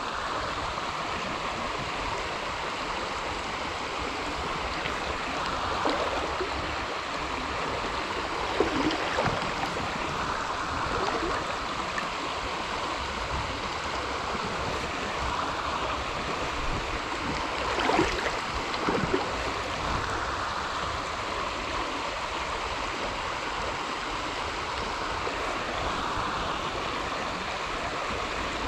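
River water flowing steadily, with a few brief louder sounds rising above it now and then.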